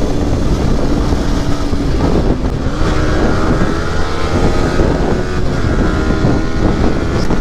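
Single-cylinder Yamaha R15 v3 sport motorcycle engine running at high road speed, with heavy wind rush on the helmet microphone. A higher engine note joins about three seconds in.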